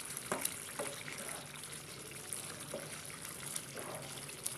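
Rice simmering in chicken stock, bubbling in a pan while a wooden spatula stirs it, with a few soft scrapes and knocks.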